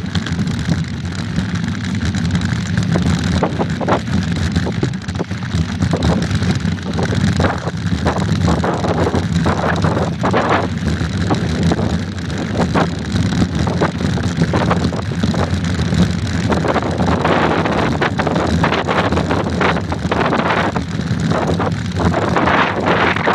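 Wind buffeting the microphone of a phone mounted on a mountain bike riding a gravel dirt road, with a steady low rumble and frequent short knocks and rattles as the bike jolts over bumps.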